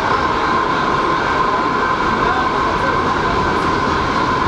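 R62A New York City subway car running at speed through a tunnel, heard from inside the car: loud, steady rumble and rail noise with a steady whine on top.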